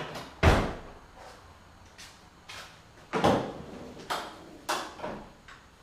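Pontiac Fiero's door pushed shut with a solid thud about half a second in. Later come a sharper clunk and a few lighter clicks and rattles as the front hood is unlatched and raised.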